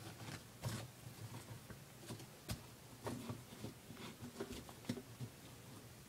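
Faint, irregular scratching and crackling of dry bark-chip substrate as a tegu burrows through it.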